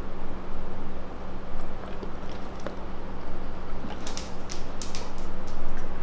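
A large dog's claws ticking on a hard workshop floor as it walks off, a quick run of sharp clicks about four seconds in, over a steady low hum.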